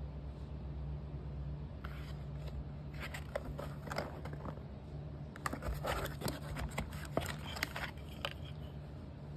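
Cardboard box of a speaker crossover network being opened and its circuit board slid out: clusters of short scrapes and clicks of card and packaging, busiest from about three to eight seconds in, over a steady low hum.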